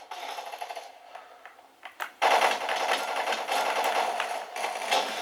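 Game audio from a first-person shooter: a dense, rapid rattle of action sounds that drops low for about a second, then comes back with a sharp click about two seconds in.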